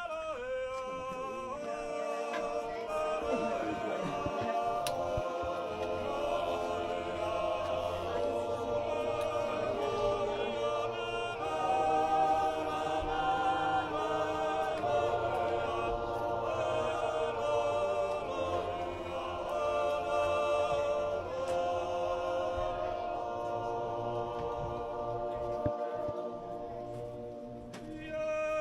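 Background music of a choir singing in sustained, slow-moving harmony.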